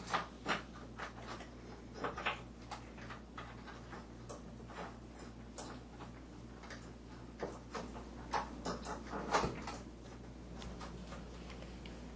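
Irregular light clicks and taps of hands working the plastic cable sleeve and clip on a monitor arm's base post, over a steady low hum.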